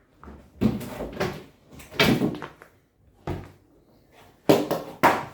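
Plastic toys being handled and put into a plastic tub: about six separate knocks and rattles, the two loudest a little over four seconds in.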